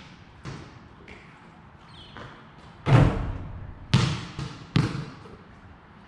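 Basketball bouncing on a concrete floor: a few faint knocks, then three loud bounces about a second apart that come closer together, each with a short echo off the brick walls and roof.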